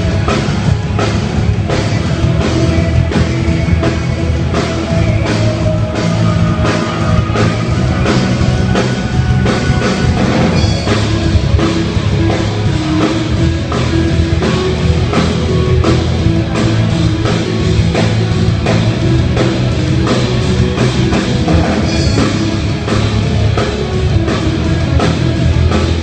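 Live rock band playing a song at a sound check: drum kit keeping a steady beat under electric guitars and bass.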